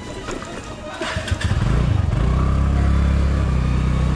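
TVS Ntorq 125 scooter's single-cylinder engine picking up speed, getting louder about a second and a half in and then running steadily. A few sharp clicks come before it.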